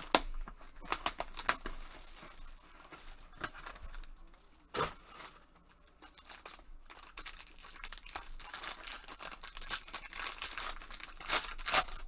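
Packaging crinkling and rustling as a foil trading-card pack is handled and torn open. The crinkling goes quiet for a moment about halfway, then grows denser and louder as the foil is ripped open near the end.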